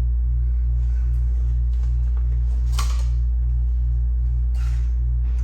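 Steady low electrical hum with a faint regular pulsing, with a few light clicks and rustles over it, the clearest about three seconds in.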